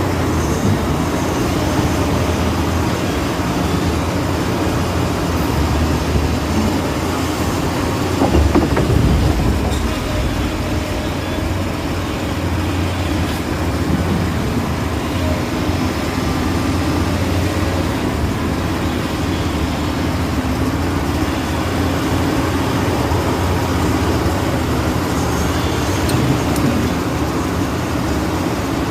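Radio-controlled model excavators running steadily, the hum of their motors and hydraulic pumps, with a louder surge about eight seconds in.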